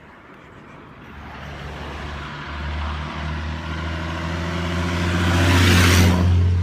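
A big truck approaching and passing close by: its engine hum and road noise grow steadily louder to a peak about six seconds in, then start to fade.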